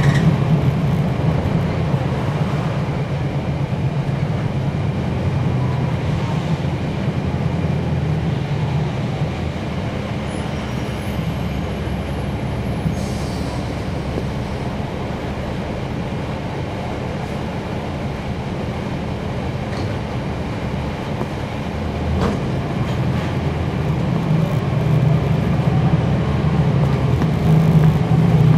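Cummins ISL9 inline-six diesel of a NABI 40-foot transit bus heard from inside the bus, running steadily. It is louder at the start, quieter through the middle, and builds up again near the end.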